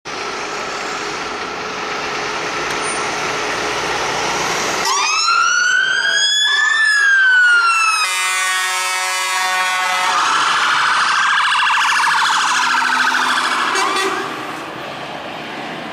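Fire engine sirens start about five seconds in after a steady background rumble, sweeping up and down in slow wails, with a faster warbling tone for a while. The sirens fall away near the end as the engines drive off.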